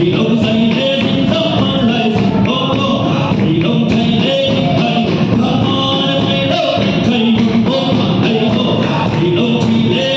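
Live church worship music: a hymn sung over loud amplified instrumental accompaniment.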